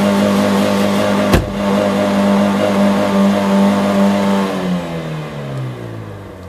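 Car engine held at steady high revs with the accelerator pressed, with one sharp click about a second and a half in. Near the end the pedal is released and the revs fall away toward idle.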